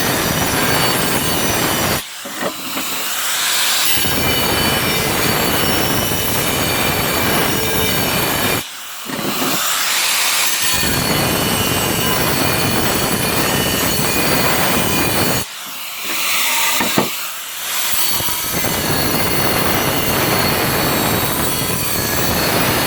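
Makita angle grinder cutting tile: a loud, harsh grinding noise that drops away briefly three times and then resumes.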